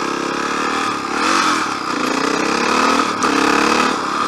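Honda motorcycle engine accelerating away from a stop, its pitch climbing and then falling back twice as the rider shifts up through the gears.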